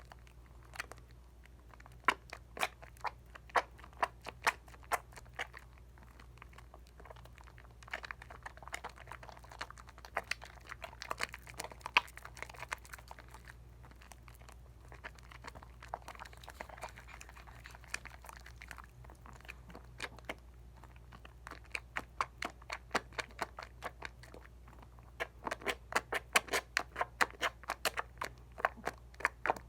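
Dial coconut soap lather worked wet by hand: soft squishing with many small crackling pops of bursting bubbles, the pops coming thicker near the end. A faint steady low hum runs underneath.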